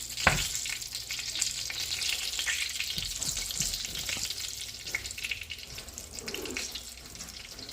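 Chicken-filled tortilla frying in bacon grease in a pan, with steady sizzling and crackling. A sharp knock comes right at the start.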